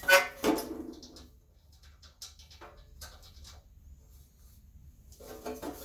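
Drill press electric motor running with a low steady hum, its rotor and stator freshly reworked to cure a knocking rub. A short pitched, cooing-like sound is loudest in the first half-second, a weaker one comes near the end, and light clicks fall in between.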